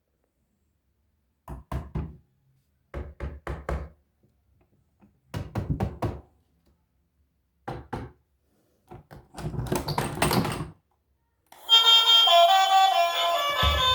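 Short groups of hard knocks and clacks, four or five in quick succession each time, with a denser rattling clatter just before ten seconds; instrumental music starts about three-quarters of the way through.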